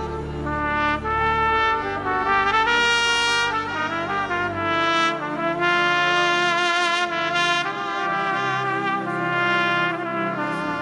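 Trumpet playing a slow melody in long held notes over a sustained low accompaniment.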